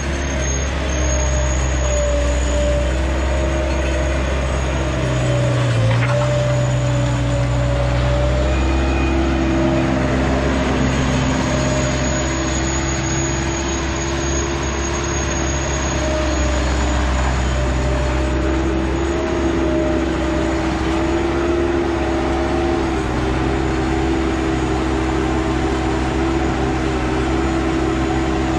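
Work truck driving, heard from inside the cab: a steady low engine drone and road noise, with a few held tones that shift in pitch now and then.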